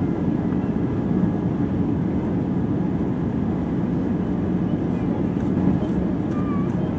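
Steady roar of a jet airliner's engines and airflow heard inside the passenger cabin, from a window seat beside the wing.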